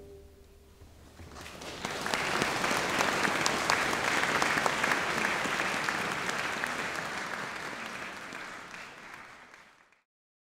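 Audience applauding. The last held note of the singing fades, the clapping builds about a second in and keeps up steadily, then thins and stops near the end.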